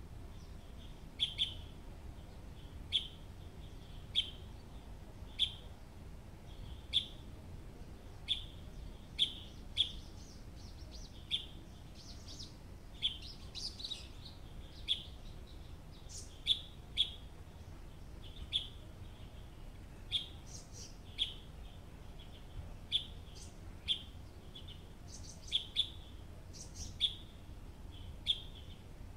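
Bird chirping: one bird repeats a short, sharp chirp about once a second, with brief higher twittering calls now and then, over a faint low rumble.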